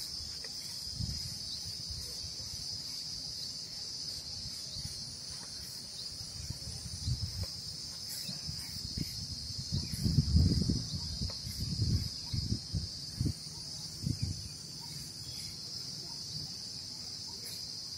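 A steady, high-pitched chorus of insects droning without a break. A few low thumps and rumbles come about ten to thirteen seconds in.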